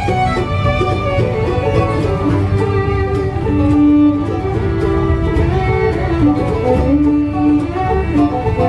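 Live bluegrass band playing an instrumental passage with no singing: fiddle with guitar and banjo over a steady double-bass pulse.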